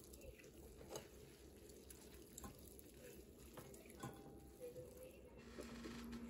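Near silence with a few faint taps and clicks of chopsticks and tableware as cooked noodles are portioned into bowls. A steady low tone comes in near the end.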